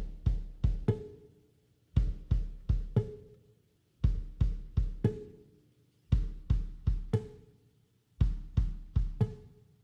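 Background music with a steady drum beat: a group of sharp drum hits over a deep bass, repeating about every two seconds.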